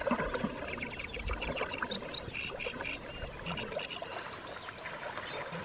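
Water splashing and lapping with a swimmer's breaststroke strokes, with birds chirping in the background.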